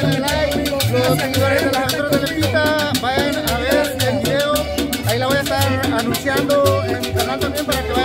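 Loud Latin dance music with a repeating bass line, steady percussion and a gliding melody line.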